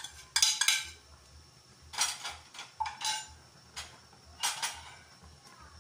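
Kitchen utensil clinking and scraping against a ceramic bowl and the rim of a metal cooking pot as chopped spring onion is tipped into the soup: a series of sharp clicks and knocks, bunched in the first second and again between about two and five seconds in.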